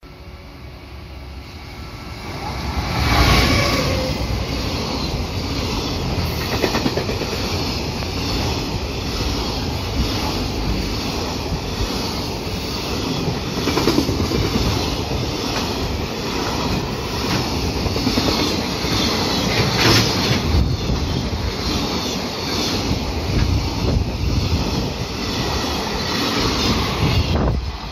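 JR Freight EF210 electric locomotive hauling a container freight train through at speed. The sound builds over the first three seconds as the locomotive passes, then the wagons' wheels clatter steadily along the rails, with one sharper knock about two-thirds of the way in.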